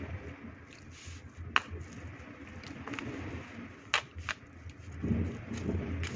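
Plastic rice paddle pressing and smoothing sticky glutinous rice in an aluminium foil tray: soft rustling and patting, with a few sharp clicks from the foil tray about a second and a half in and near four seconds. A low steady hum runs underneath.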